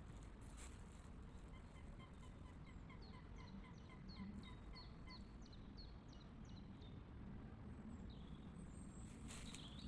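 Faint songbird song: a rapid series of short repeated notes, about three or four a second, lasting several seconds, then a few higher, thinner notes near the end.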